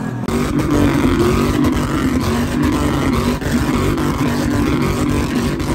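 A loud vehicle engine running with a deep, steady rumble.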